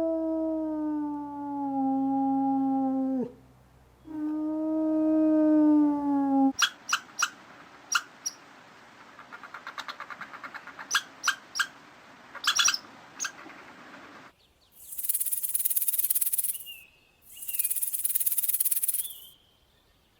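A run of animal calls: two long, pitched calls whose pitch slowly falls, then a series of sharp chirps and clicks from about six seconds in, then two loud hissing bursts near the end.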